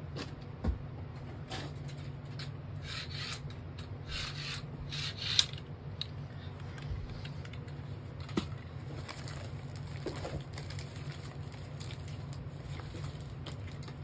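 Hands handling Beyblade parts: rubbing and scraping with a few sharp clicks, the loudest about five seconds in, over a steady low hum.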